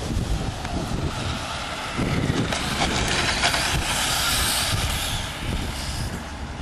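1/5-scale electric RC motorbikes whirring past as they race, a hissy whir that swells from about two to five seconds in as the bikes come close, over a low rumble.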